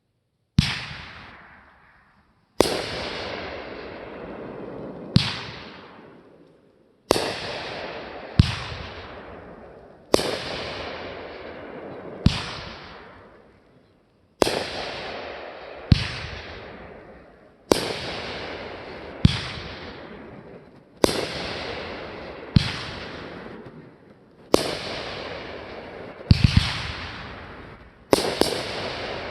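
Fireworks going off in a steady series, a sharp bang every one to two seconds, each fading away over a second or more. Near the end two or three bangs come in quick succession.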